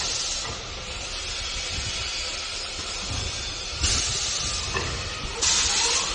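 CNC wood lathe running, a steady hissing machine noise that grows louder about four and five and a half seconds in, with a faint whine rising in pitch near the end.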